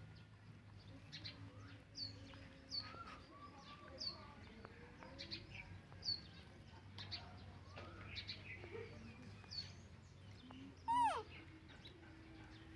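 Birds chirping in the background: short, high, falling chirps about once a second. Near the end, a single much louder, falling animal cry.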